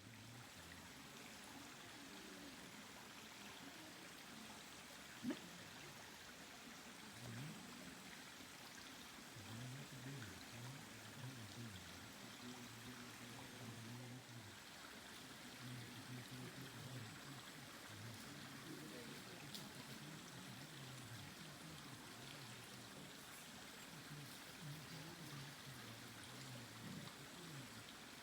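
Faint forest ambience: a steady soft hiss with low, repeated croaking of distant frogs, and a single sharp click about five seconds in.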